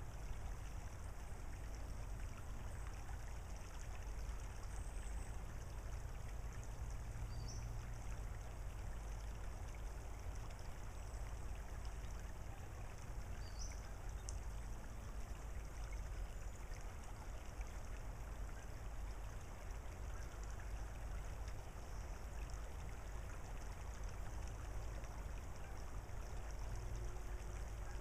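Shallow tidal creek trickling steadily over a gravel bar, with a steady low rumble underneath.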